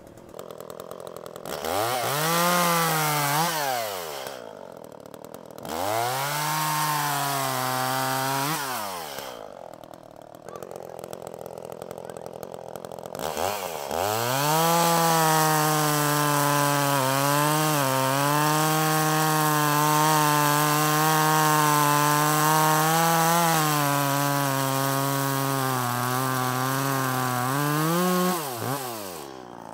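Echo CS-400 two-stroke chainsaw revved up and let back down to idle twice, then held at full throttle for about fifteen seconds while cutting through a log, its engine note dropping back near the end.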